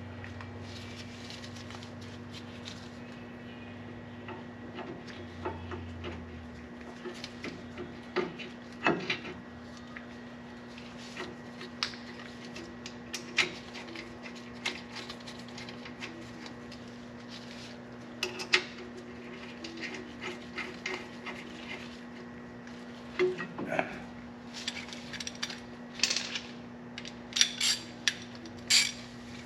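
Metal brake parts and hand tools being handled during a brake pad fitting: scattered light clinks, clanks and scrapes, coming thicker in the last few seconds, over a steady low hum.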